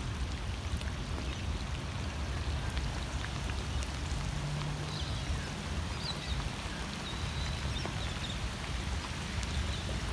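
Steady rain falling, a constant even patter with a low rumble underneath. A brief low hum comes in about four seconds in.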